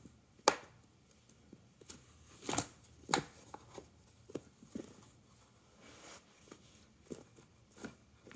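A cat batting and pawing at a feather wand toy on a rug: sporadic short scratchy rustles and light taps, the loudest about half a second in and again around three seconds in.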